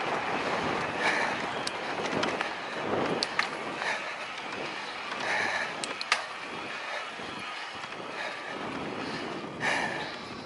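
Electric mountain bike rolling down a dirt trail: a steady rush of tyres on dirt and moving air, with scattered sharp clicks and rattles as the bike goes over bumps.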